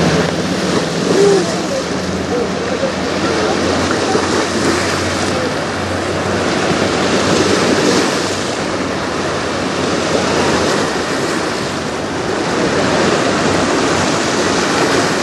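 River water washing and splashing against a rocky bank, a steady rushing noise, with wind on the microphone. A low hum underneath fades out over the first few seconds.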